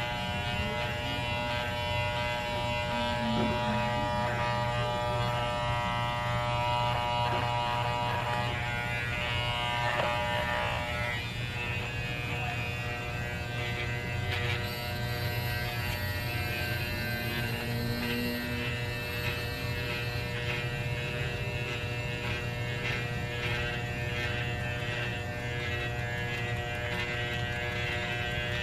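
Electric hair clippers buzzing steadily as they shave a small dog's coat.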